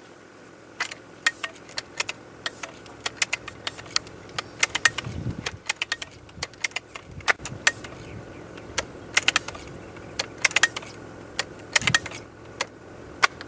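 Multi-pump air rifle being handled and pumped: irregular sharp metallic clicks and rattles in short runs, with two low thumps about five and twelve seconds in.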